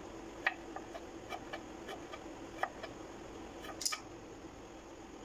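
Knife slicing potato into thin sticks on a wooden chopping board: a handful of light, irregular taps of the blade striking the board, over a faint steady hum.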